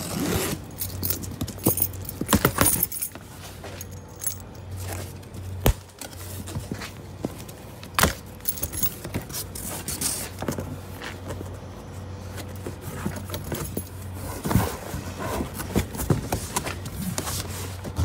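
A person walking on a rooftop with jangling metal and scattered clicks and rattles of handled gear, a few sharper knocks among them, over a steady low hum.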